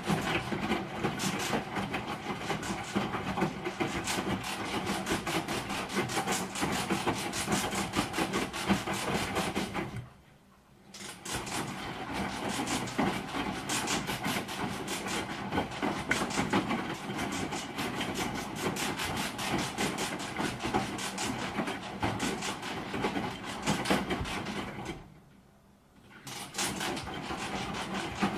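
Broken washing machine running with a continuous harsh rattling and clattering over a steady hum. It cuts out twice for about a second, around ten seconds in and again near the end, and starts again each time.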